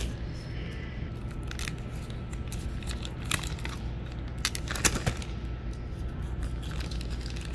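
Soft plastic packaging bag being handled and pulled open, crinkling and rustling, with a few sharp crackles. A steady low hum lies underneath.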